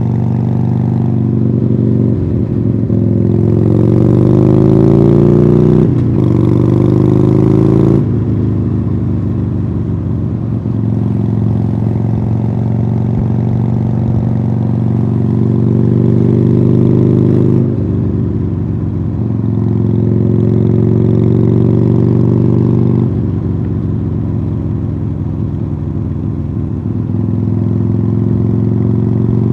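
2015 Harley-Davidson Sportster Iron 883's 883 cc V-twin running through Khrome Werks Tapered 3 exhausts on the move. The revs climb twice in the first eight seconds, falling back at about six and eight seconds in. After that the engine holds a fairly steady note, with small rises and dips in the throttle.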